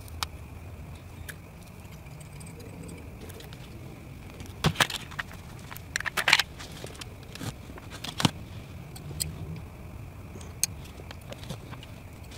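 Scattered sharp metallic clicks and clinks of hands and tools handling nickel strip on a lithium-ion battery pack, loudest in a few quick clusters around the middle. A low steady hum and a faint steady whine run underneath.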